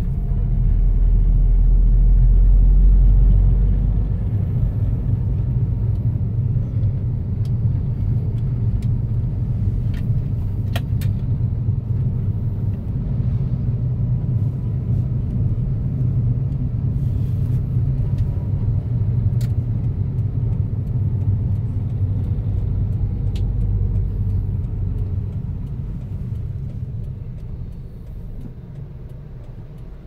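Car driving along a road, heard from inside: a steady low rumble of engine and tyres, louder for the first few seconds, with a few faint clicks, easing off near the end.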